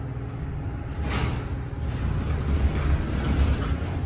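Large MEI hydraulic elevator, rated at 10,000 lb: a low rumble from the cab and its machinery, growing heavier in the second half as the big stainless-steel doors slide open.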